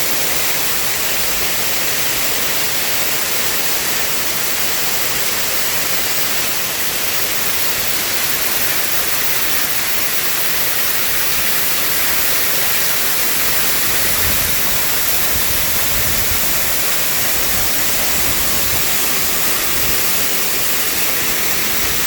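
Strong wind blowing with a steady rushing hiss, with a few low gusts buffeting the microphone about two-thirds of the way through.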